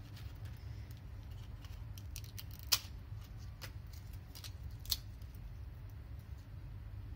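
Crisp fried sago papad breaking apart between fingers: small crackles and snaps, with two sharper cracks about three and five seconds in, over a steady low hum.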